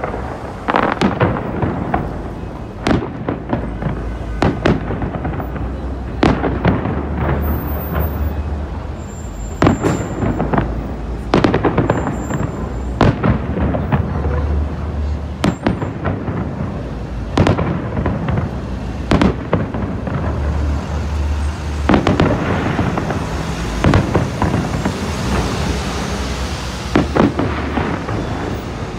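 Aerial fireworks shells bursting one after another, a sharp report every second or two with a low rumble under them. Near the end comes a stretch of crackling as glittering stars fill the sky.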